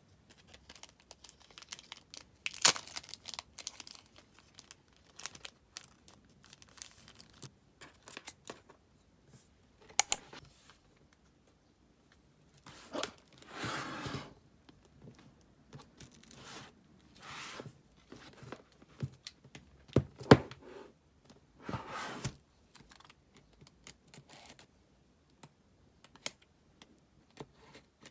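Plastic wrapping and packaging of a CD album box being torn open and crinkled, with scattered sharp clicks and taps as the box and its contents are handled. Several rustling bursts last up to about a second, and the sharpest clicks come about a third of the way in and again about two-thirds of the way in.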